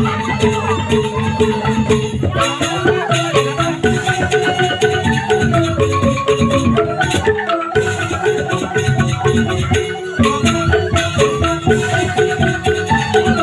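Music: a melody of short, quick notes on a tuned mallet-percussion instrument over a steady low beat, with a shaker.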